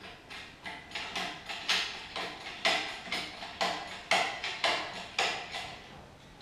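Shop engine hoist's hydraulic jack being pumped by its handle: a steady run of metallic clacks, two to three a second, each ringing briefly.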